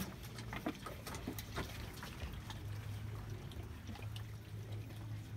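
Piglets feeding at a plastic feeder: many scattered small clicks and wet chewing sounds over a low steady hum.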